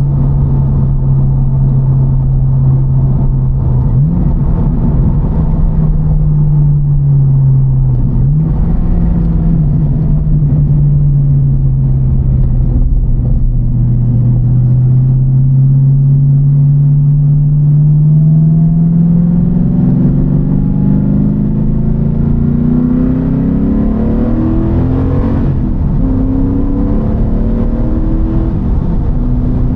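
TVR Chimaera's 4.65-litre V8, with a race cam and the pre-cats removed, running under way with a deep, steady engine note. In the second half the revs climb, drop suddenly at a gear change, and climb again.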